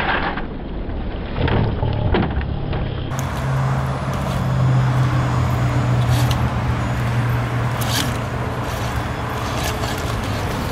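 Traxxas TRX-4 Sport RC crawler's electric motor and drivetrain humming steadily as it crawls up a tree stump, with its tyres scraping and knocking on the wood. The hum fades out near the end.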